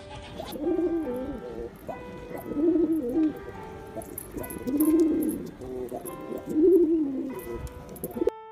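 Domestic pigeons cooing: four rolling coos, one about every two seconds, over background music.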